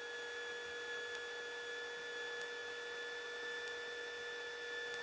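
Steady electrical hum with a faint hiss on the cockpit audio feed, a few fixed pitches held without change.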